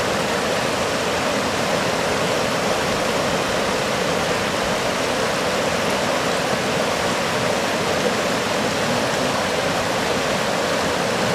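Water rushing over a low weir and through the rocky shallows below it, a steady, unbroken rush.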